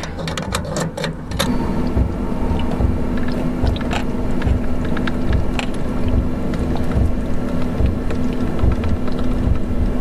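Cooked pasta being tipped and scraped out of a nonstick pot onto a paper plate, with small scattered clinks and scrapes over a steady hum and low rumble.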